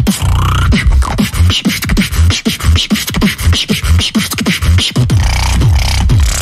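Human beatboxing: a fast, dense beat of mouth-made kick drums that drop in pitch, sharp snare and hi-hat clicks, and a held low bass sound underneath.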